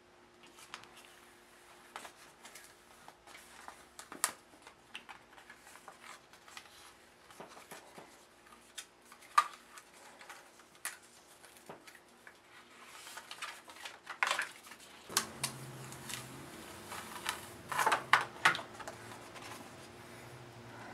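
Paper being handled, pressed down and peeled off a tacky cutting mat: scattered clicks and crackles, with louder crinkling rustles twice near the end. A faint steady hum runs underneath, and a lower hum joins about three quarters of the way in.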